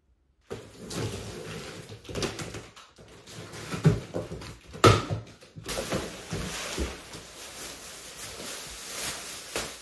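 Cardboard box being opened by hand: a knife slicing packing tape and the flaps scraping and knocking as they are pulled back, with two sharp knocks about four and five seconds in. Later, the plastic wrapping around the chair rustles as it is lifted out of the box.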